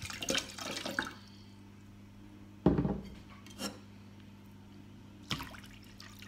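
Water poured into a plastic mixing bowl, the splashing stopping about a second in, followed by a few dull knocks and taps, the loudest a low thud near the middle.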